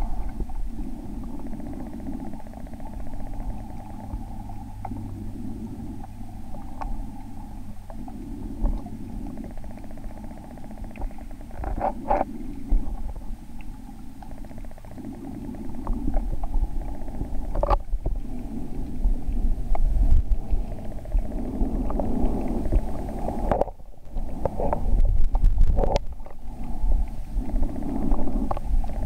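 Muffled sound of shallow spring-run water heard through a submerged camera: a steady low rumble and swish, with scattered clicks and knocks as the camera is moved, growing louder about halfway through.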